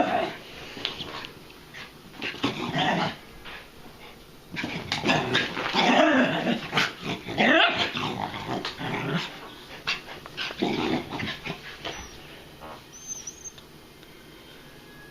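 Dogs playing, growling and whining in irregular bursts, busiest in the middle and dying down near the end.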